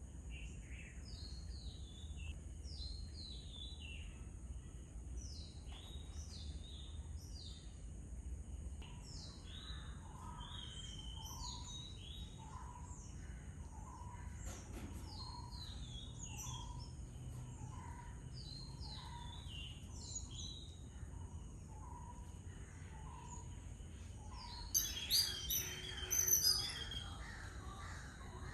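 Birds calling: short high chirps slurring downward, repeating about once a second, with a lower short note repeating alongside. A louder flurry of calls comes near the end.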